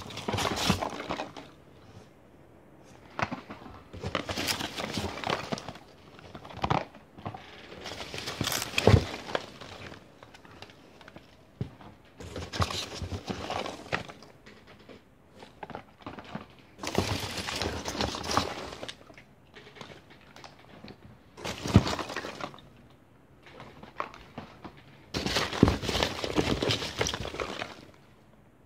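Polystyrene packing peanuts rustling in a cardboard box as a hand rummages through them, in repeated bouts of a few seconds with short lulls between, and a few sharp knocks.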